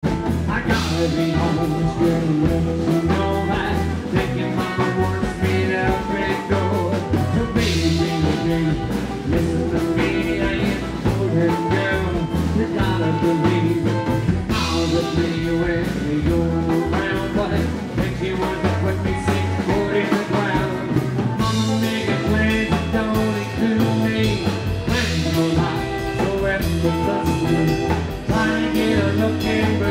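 A rockabilly band playing live with a Telecaster-style electric guitar, an upright double bass, a drum kit and an acoustic guitar. The drums keep a steady driving beat under a moving bass line and electric guitar lines.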